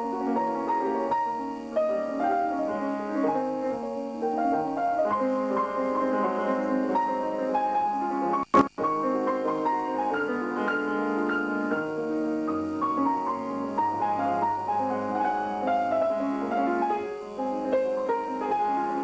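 Solo grand piano played live: a flowing passage of many quick notes. About eight and a half seconds in, the sound cuts out for a split second with a click, a dropout in the recording.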